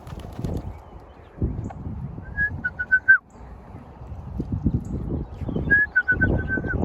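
Two quick runs of short, even, high whistled notes at one pitch, about five a run, the first run ending on a falling note, over a low rumble of wind on the microphone.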